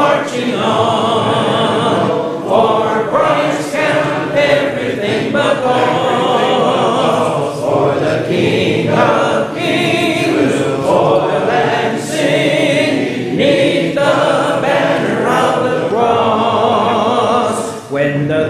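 A church congregation singing a hymn a cappella in parts, with no instruments. The many voices blend as a choir, with a brief pause near the end before the next verse begins.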